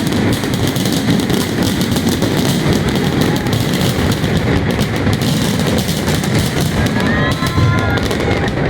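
Fireworks display in a dense barrage: many overlapping bangs and crackles in quick succession, with no pause. A few short gliding whistles come through near the end.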